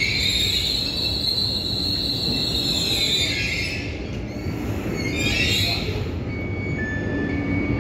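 Regional train's brakes and wheels squealing in high, wavering tones as it comes to a stop, dying away about three seconds in and flaring again briefly around five seconds, over a low rumble. Near the end a short high electronic beep starts repeating.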